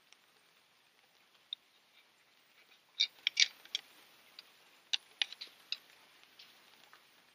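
Screwdriver clicking and tapping against the carburetor and engine metal among the hoses: a cluster of sharp clicks about three seconds in and another around five seconds.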